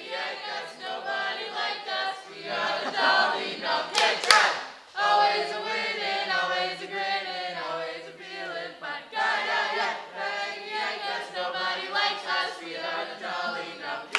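A small group of young men and women singing or chanting together without instruments, with a brief loud outburst about four seconds in.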